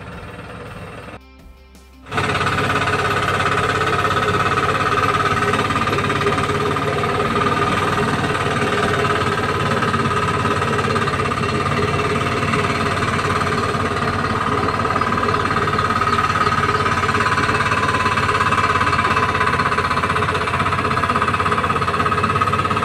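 Small single-cylinder engine of a kuliglig hand tractor running steadily under load as it works through a muddy rice paddy, a fast, even chugging. It comes in loud about two seconds in, after a brief quieter stretch.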